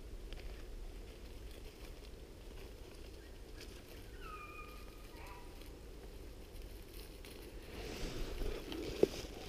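Footsteps crunching through dry leaf litter and brush, growing louder near the end, with a sharp snap about half a second before the end. Around the middle, a faint distant animal call: two short, even-pitched tones.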